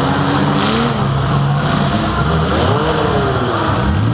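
Compact demolition derby cars' engines running loudly and revving up and down, one rising and falling in pitch twice near the end, heard from the camera car.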